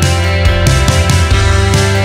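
Loud rock background music with distorted guitar, heavy bass and a steady drum beat.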